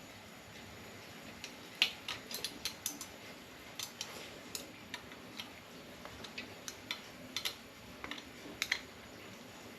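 Adjustable spanner working the clamp nut of a bicycle handlebar lever: a scatter of light, irregular metallic clicks and taps, with a sharper click about two seconds in and a quick pair near the end.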